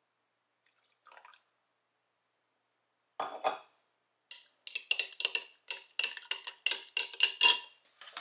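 Spoon stirring candy cane syrup and espresso together in a clear glass mug. After a short clatter about three seconds in, the spoon clinks against the glass about three times a second, each strike ringing.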